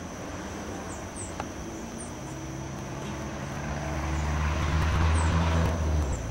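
A low engine hum passes by. It swells from about halfway through, is loudest near the end, then fades. Under it runs a steady high-pitched tone, with a few faint, short, high chirps.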